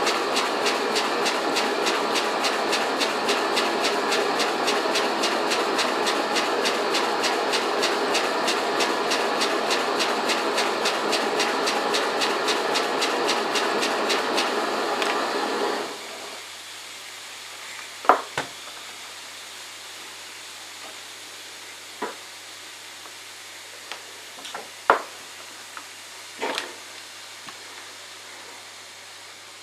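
Homemade steam engine, cast from melted aluminium cans, running on steam with a fast, even, hissing chuff of exhaust that stops abruptly about halfway through. After that there is a faint hiss and a low hum, with a few sharp knocks.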